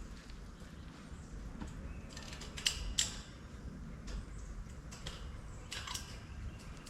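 Light metallic clinks and rattles of wire fencing being handled, with a cluster of sharp clicks about two and a half to three seconds in and another near six seconds.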